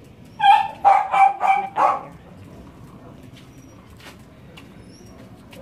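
A dog barking five times in quick succession, from about half a second to two seconds in.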